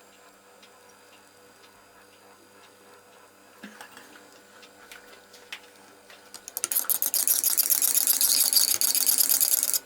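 Fast, rhythmic clinking and scraping of a tool stirring melted lure silicone in its pot to blend in the colourant and glitter. Faint scattered ticks come first; the stirring starts loud about two-thirds of the way in and runs for about three seconds.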